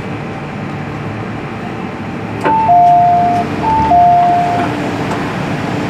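MTR M-Train passenger-door chime: a click, then a two-note high-low chime sounding twice as the doors open at a station stop. Under it is the steady hum of the stopped train.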